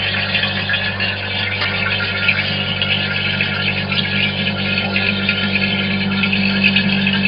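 Vacuum pump running steadily, a hum with a hiss above it, evacuating a degassing chamber holding freshly poured RTV mould rubber to draw the air bubbles out.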